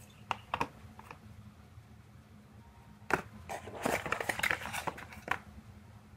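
Handling of a cardboard product box: scattered clicks and taps, then a busier stretch of rustling and clicking about three to five seconds in as the box insert is opened and a small cable is taken out.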